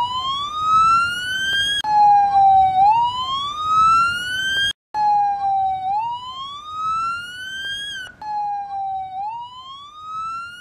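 Emergency vehicle siren sounding: a loud tone that dips slightly, then climbs steadily in pitch, starting over about every three seconds with abrupt breaks.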